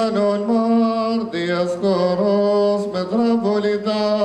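Male liturgical chant: long held notes that step up and down in pitch, sung without instruments.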